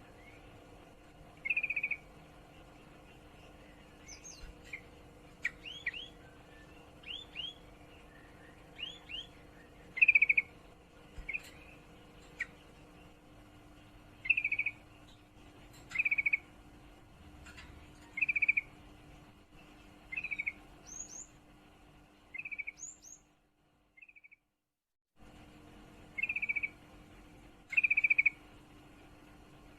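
Female yellow-vented bulbul (trucukan) in breeding condition giving short, chattering calls about every two seconds, mixed with quick rising whistles: the call a female in heat uses to draw males. The sound drops out to silence for about a second and a half near the end.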